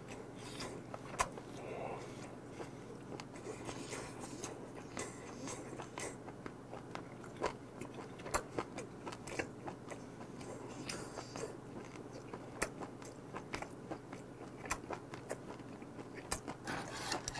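Close-up mouth sounds of a person gnawing and chewing braised meat off a pork rib bone, with small irregular clicks and smacks.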